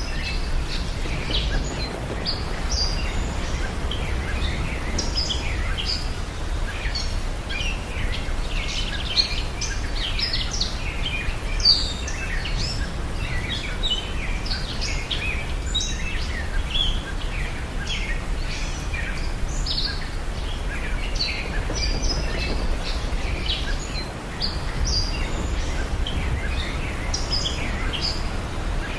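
Many small birds chirping and twittering over a steady low outdoor background noise, like a nature ambience bed.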